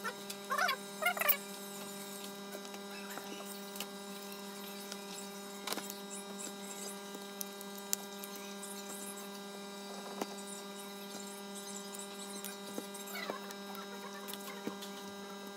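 Low, steady electrical hum, with a few faint clicks spread through and a couple of short squeaky chirps in the first second or so.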